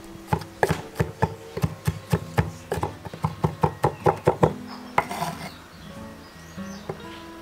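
Chef's knife chopping garlic on a wooden cutting board: a run of sharp knocks, speeding up from about three to about five a second, then a short scrape about five seconds in as the blade gathers the minced garlic. Background music plays throughout.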